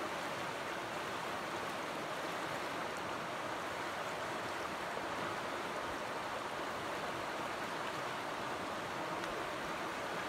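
Small forest stream running over a shallow riffle: a steady, even rush of water.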